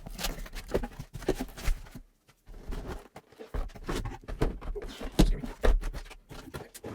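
A box holding a desoldering station being unboxed by hand: irregular knocks, taps and rustles as the box and its packing are handled, with a short pause about two seconds in.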